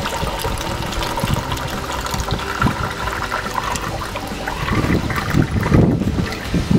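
Thick spent malt mash from a distillation pouring steadily out of a steam-water boiler's wide bottom drain tap into a metal bucket as it fills. It flows freely through the large-diameter tap without clogging.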